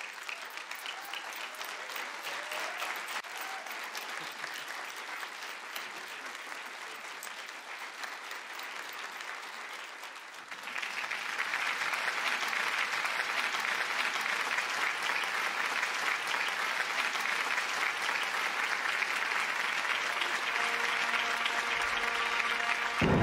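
Audience applauding, growing clearly louder about ten seconds in.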